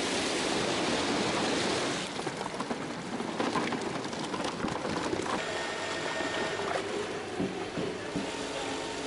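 A heavy, steady rush of water, with fish in it, pouring from a fish-transport tank into a trout raceway. After about two seconds it gives way to lighter, uneven splashing with scattered knocks as trout are netted and handled in water.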